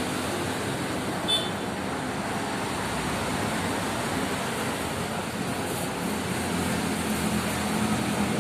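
Steady road traffic noise with a low hum that grows a little stronger near the end, and a short high chirp about a second in.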